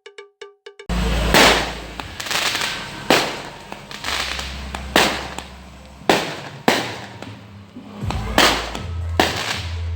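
Fireworks going off in a string of sharp bangs, about one a second, each with a crackling tail, over a steady low rumble. The bangs start suddenly about a second in, right after a brief fast ringing jingle.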